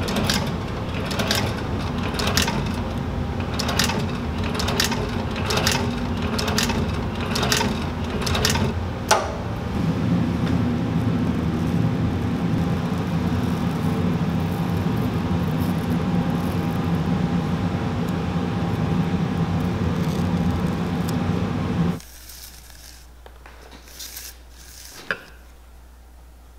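Industrial sewing machine stitching a boot collar: a steady motor hum with a sharp stitch click a little more than once a second for about nine seconds, then the motor humming on alone. The hum cuts off suddenly about 22 seconds in, leaving a few faint ticks.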